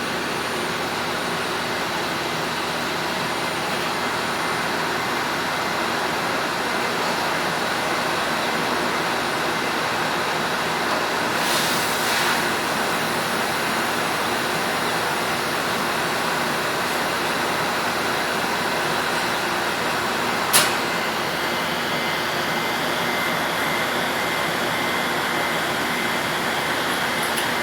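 Steady drone of machinery running in a machine shop, with a short hiss about twelve seconds in and a single sharp click about twenty seconds in.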